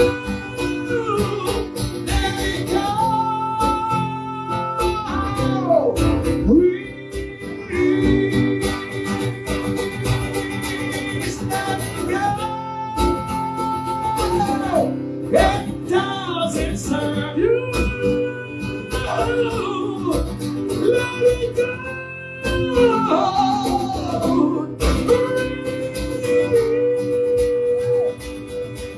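Acoustic guitar accompanying singing with long, held vocal notes that slide between pitches, without clear words.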